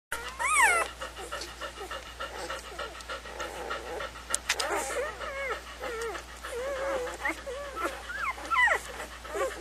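Newborn golden retriever puppies squeaking and whining while they nurse: many short high-pitched calls that rise and fall, the loudest a falling squeal about half a second in.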